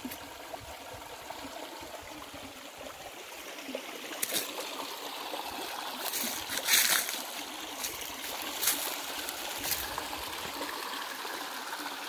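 Shallow creek water trickling steadily over stones. A few short crunching scuffs break in, the loudest about halfway through.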